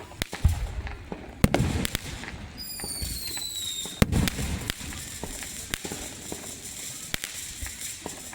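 Fireworks display: scattered sharp cracks and low booms of shells bursting. A whistling firework glides down in pitch for about a second and a half, ending in a loud bang about four seconds in.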